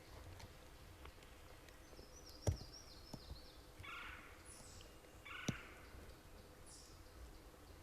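Faint woodland birdsong: a quick run of high chirps, later a few short high notes, and two short raspy calls about a second and a half apart. Two sharp clicks about three seconds apart stand out as the loudest sounds.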